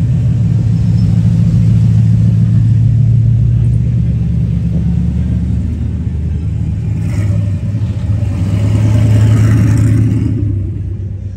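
A truck engine running with a deep, low rumble; it swells again near the end, then fades.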